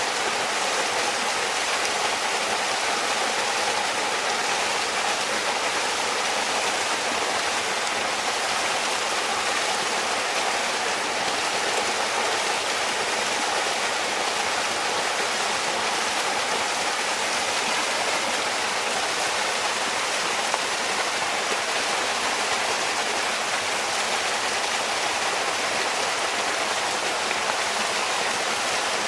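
Bamboo water fountain with water running and trickling steadily, an even unbroken rush.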